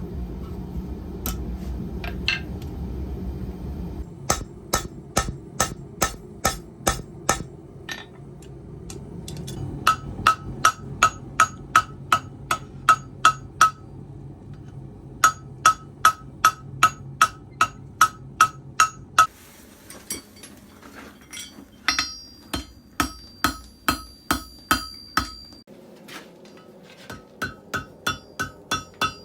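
Hand hammer striking steel on an anvil in runs of steady blows, about three a second, each blow ringing, with short pauses between the runs while forging.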